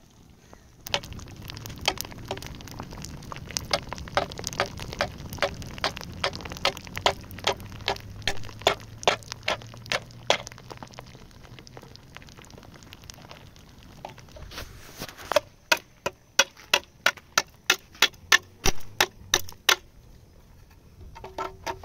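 Wood fire burning under a metal tin, crackling and popping irregularly over a low roar of flame. Later comes a quick, even run of about sixteen sharp knocks, roughly four a second, as a small can is struck against a rock.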